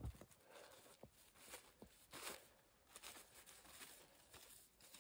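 Near silence broken by faint, scattered crinkles of a plastic bag being handled.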